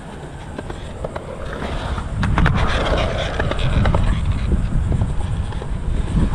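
Skateboard wheels rolling over a concrete skatepark, a low rumble that grows louder about two seconds in as the rider passes close, with a few sharp clacks from the board at that moment.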